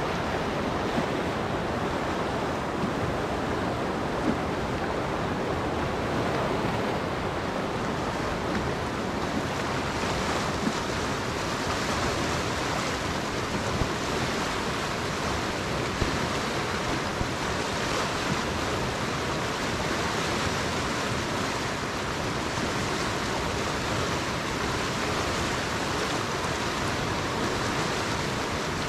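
Whitewater rapids on the Magnetawan River rushing steadily over and around rock, an even, unbroken roar of fast water.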